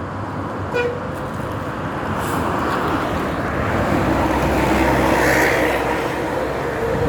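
A large bus driving past close by, its diesel engine rumble and road noise swelling to a peak about five seconds in and then easing a little. There is a short toot about a second in.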